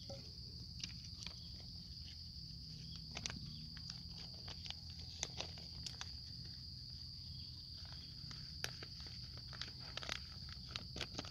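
Thin clear plastic sheet and a plastic jar and lid handled close by, giving many short crinkles and clicks. Under them, insects keep up a steady high-pitched drone.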